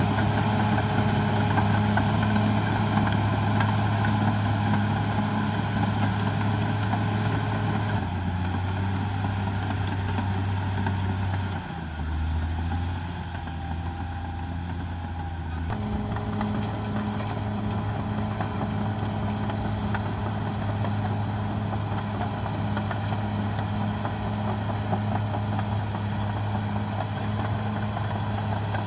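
Caterpillar D6R XL bulldozer's diesel engine running steadily at working speed. About halfway through, its note drops lower and quieter for a few seconds, then comes back up.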